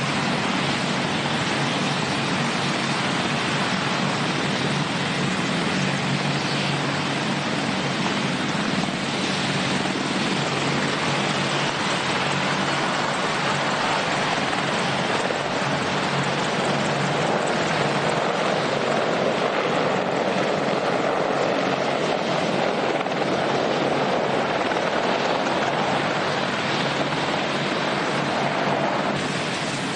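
AH-64D Apache attack helicopters flying low past, their rotors and twin turboshaft engines making a steady, dense rush of noise. The sound shifts abruptly just before the end.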